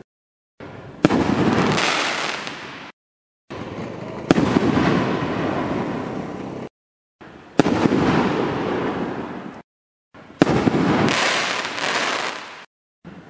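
Four 60-gram 5-inch canister firework shells bursting one after another, each a sharp bang followed by a slowly fading rumble. The sound cuts off abruptly to silence between bursts.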